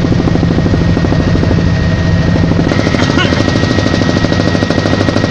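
Pawan Hans passenger helicopter in flight, heard from inside the cabin: the rotor's rapid, even chop with a steady high turbine whine over it.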